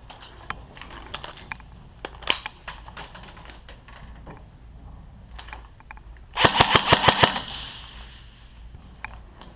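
Airsoft gun firing full-auto: a loud rapid burst of about ten shots lasting about a second, a little past the middle. Before it, scattered sharp pops of other shots.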